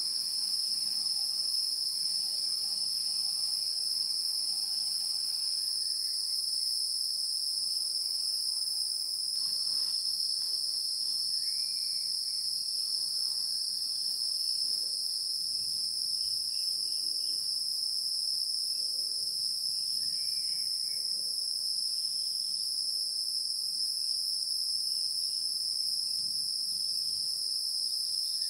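Insects trilling in a steady, continuous, high-pitched chorus, cricket-like, with a few faint short chirps about twelve and twenty seconds in.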